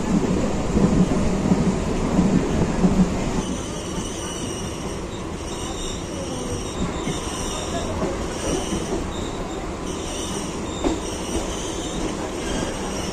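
Suburban local train running with a loud, uneven rumble from its wheels. After about three and a half seconds the rumble eases, and high-pitched wheel squeal comes and goes as the train slows on its approach to the terminus.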